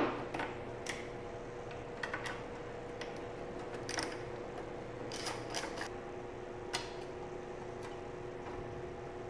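Scattered light metal clicks and taps of a wrench on the carburetor mounting nuts of a small lawnmower engine as the carburetor is unbolted and worked loose.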